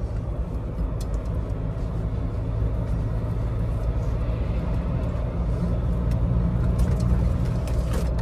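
Steady low rumble of road and engine noise inside a Ford Ranger pickup's cab while driving, with a few faint clicks.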